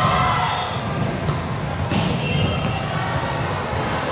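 Echoing gym noise during a volleyball rally: players' voices calling out, with two sharp ball hits about a second and two seconds in.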